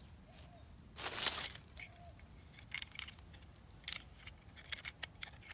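Dry fallen leaves rustling and crackling as a hand reaches into them and lifts out a small toy bus: one short rustle about a second in, then scattered light crackles.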